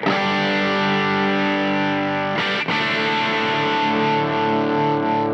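Electric guitar chords played through an MXR FOD drive pedal with its blend set to the cleaner side, lightly distorted. A chord is struck and rings, then is struck again twice about two and a half seconds in and held.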